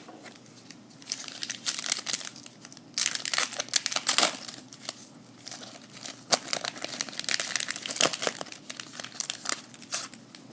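Baseball card pack wrapper being torn open and crumpled, in irregular bursts of crinkling from about a second in.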